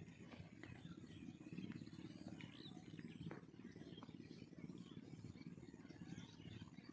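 Faint outdoor ambience: a low steady rumble with a few faint bird chirps and occasional small clicks.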